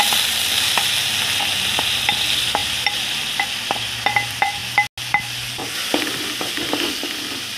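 Chopped onions sizzling in hot oil in an aluminium pan, stirred with a wooden spatula that knocks repeatedly against the pan, a few knocks a second.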